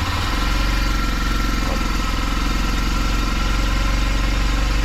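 Kawasaki D-Tracker's single-cylinder four-stroke engine idling steadily, just after starting up without trouble on a newly fitted battery.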